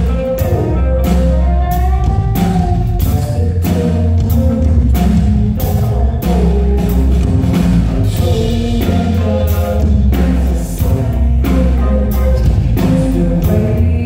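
Live indie rock band playing a song: a steady drum-kit beat over a heavy bass line, with electric guitar, keyboard and a male voice singing, loud through a theatre PA.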